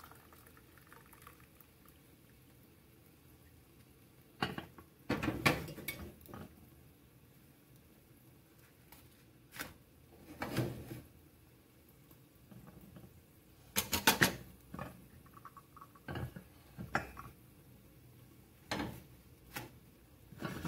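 Ceramic mug, saucers and plates clinking and knocking against one another as they are set down and shifted, in scattered clacks with the loudest cluster about five seconds in and another around fourteen seconds.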